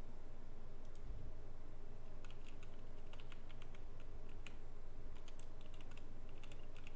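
Typing on a computer keyboard: a couple of key clicks about a second in, then a steadier run of keystrokes from about two seconds in.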